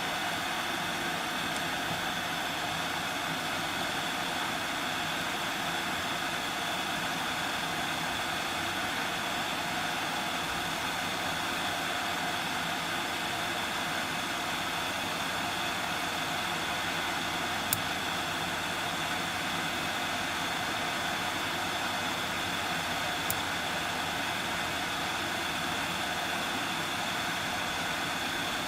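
Hot air rework station (Yihua 959D) blowing a steady rush of air with a faint high whistle, heating surface-mount resistors off a circuit board. Two brief clicks in the second half.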